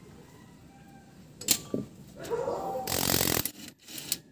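A sharp metallic click about a second and a half in, then a cordless impact wrench on the front wheel hub running in a brief half-second burst of rapid hammering about three seconds in.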